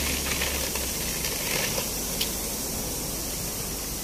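Steady outdoor hiss of street ambience, with a few faint taps of footsteps on the pavement.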